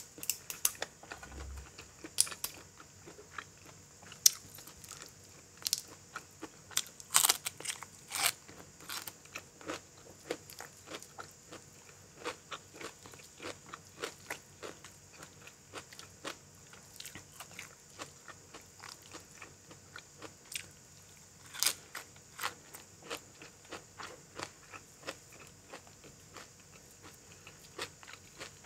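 Close-up eating sounds: irregular crisp bites and crunching with chewing in between, some bites much louder than the rest. The food is chicken feet and crunchy raw vegetables such as bitter gourd.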